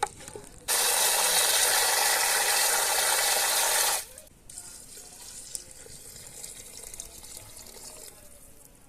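Water running hard from a tap for about three seconds, starting and stopping abruptly. After it, only faint small clicks and handling sounds.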